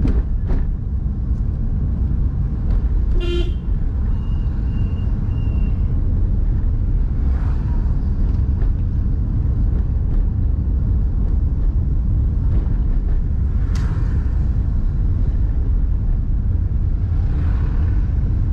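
Steady low rumble of a car driving on a paved road, heard from inside the cabin, with a short horn toot about three seconds in and a sharp click later on.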